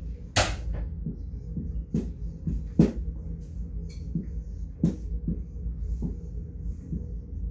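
Dry-erase marker writing on a whiteboard: a few short, scratchy strokes and taps as digits are written, over a steady low hum.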